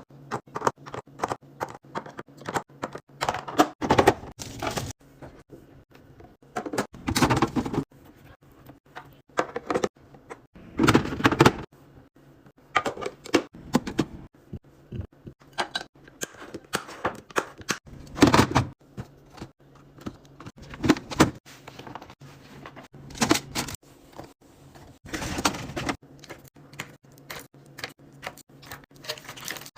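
Plastic containers, bottles and packaging being handled and set into a fridge: a dense run of clicks, clacks and knocks, several a second, with several longer noisy stretches of about a second each, over a faint steady low hum.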